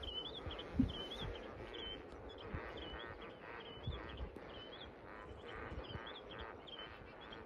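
A flock of flamingos calling in the distance: a continuous jumble of chatter, with a short high call repeating about once a second. A thump a little under a second in is the loudest single sound.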